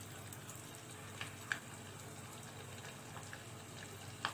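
Kubeiba (bulgur kibbeh) croquettes frying in a pot of hot oil: a soft, steady sizzle with a few faint crackles.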